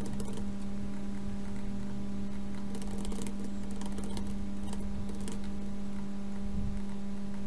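Computer keyboard keys and mouse buttons clicking in short scattered runs over a steady low electrical hum.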